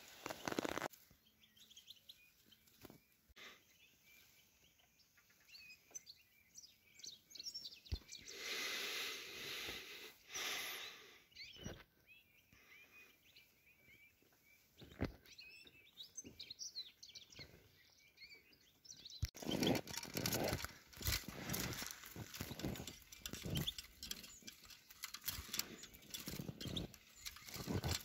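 Small songbirds chirping with many short, quick calls. About two-thirds of the way in, louder rustling and crackling noises take over.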